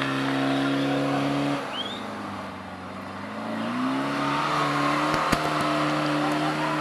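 Off-road 4x4's engine held at steady high revs, easing off about one and a half seconds in, then revving back up and holding again. A couple of sharp knocks come a little after five seconds.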